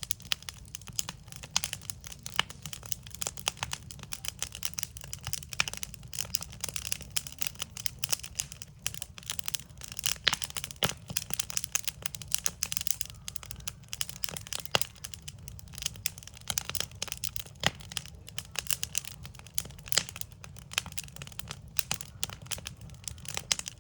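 Backyard wood fire burning, a dense irregular crackling and popping of burning wood with a low rumble of the flames beneath.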